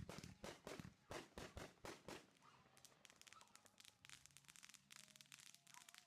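Consumer fireworks going off: a rapid run of sharp pops, several a second, for about the first two seconds, then fainter, dense crackling.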